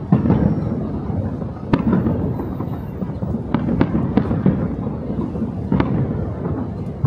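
Fireworks display: aerial shells bursting in a string of sharp bangs, a second or two apart, over a continuous low rumble of booms.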